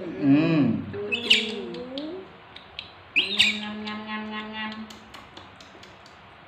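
Baby monkeys giving two short, shrill squeaks that drop steeply in pitch, about a second in and again about three seconds in.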